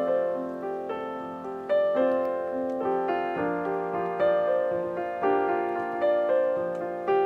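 Background piano music: chords struck about once a second, each note ringing out and fading.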